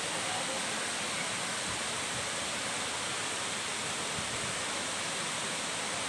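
Water pouring over low, tiered rock cascades into a pool: a steady rush of falling water.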